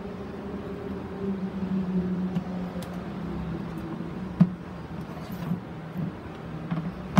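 A steady low mechanical hum, with a few sharp knocks of a plastic grid mounting board being shifted and lifted on a plastic bucket, the loudest about four and a half seconds in and another near the end.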